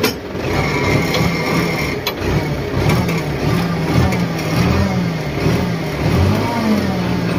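Tractor engine running with a rotavator hitched behind, its pitch wavering up and down. A sharp click comes at the start and another about two seconds in.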